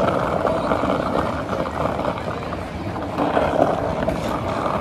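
Skateboard wheels rolling over asphalt, a steady rumble with small rattles from the rough road surface.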